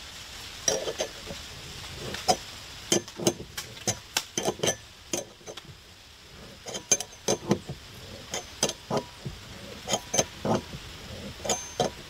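A 5/16 wrench turning a thread tap in a galvanized steel bracket, clicking and clinking metal on metal in short strokes. The clicks are sharp and irregular, in clusters, with a lull about halfway through. The tap is chasing threads too tight to start a bolt by hand.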